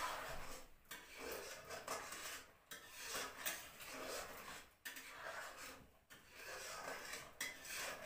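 Metal spoon scraping and stirring semolina in a steel kadai, in a run of repeated strokes with short pauses between them, as the suji cooks.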